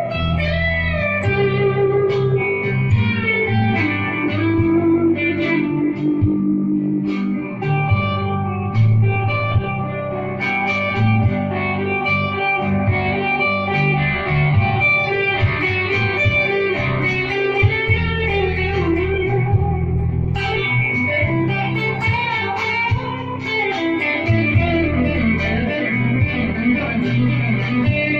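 Electric guitar played as a lead line: single notes, some bent in pitch, over sustained low notes.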